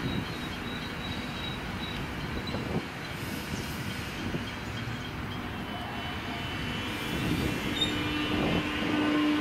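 Alstom X'trapolis electric suburban train standing at the platform with a steady hum. Near the end a steady electric whine from its traction motors sets in as it starts to pull away.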